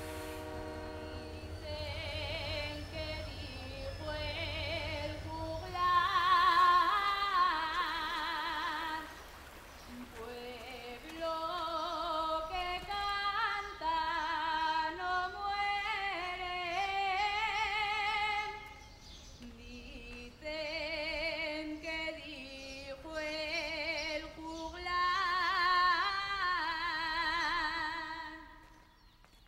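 Soundtrack music: a woman's voice singing a slow melody in long held notes with vibrato, phrase by phrase with short pauses between. A low rumble sits under the first few seconds, and the music fades out near the end.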